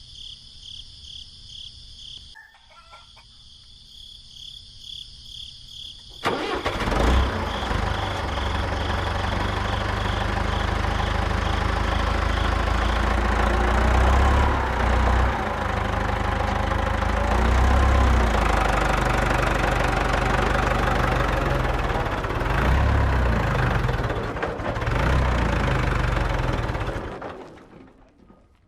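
Crickets chirping in a steady pulsing trill, then about six seconds in a mini tractor's small engine comes in abruptly, running loud with an uneven low throb, and fades away near the end.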